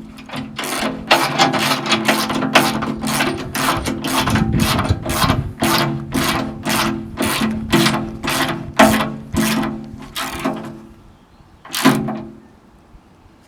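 Ratchet wrench tightening a bolt and jam nut, with a run of short ratcheting strokes, about two a second. The strokes stop about eleven seconds in, followed by one last stroke.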